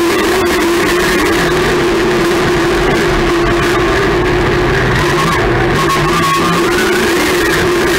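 Loud engine of a dirt-track race car heard from inside its caged cockpit, running at a steady pitch that wavers slightly.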